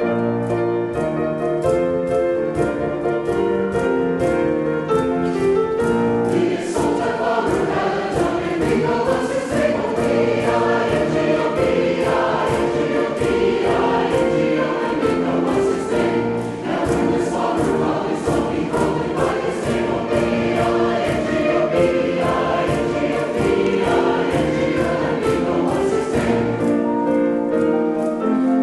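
Men's chorus singing in harmony, with piano accompaniment and a steady percussion beat.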